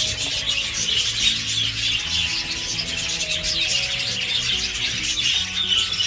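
A flock of budgerigars chattering: a continuous scratchy, flickering warble of many birds at once. Soft background music with held low notes plays beneath.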